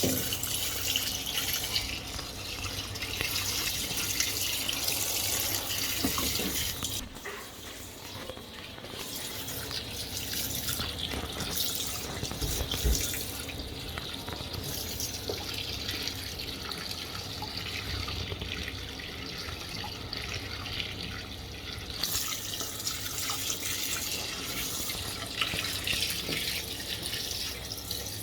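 Fisher & Paykel MW511 washing machine filling with water: a continuous rush of water running into the tub. The hiss thins about a quarter of the way in and grows fuller again later on.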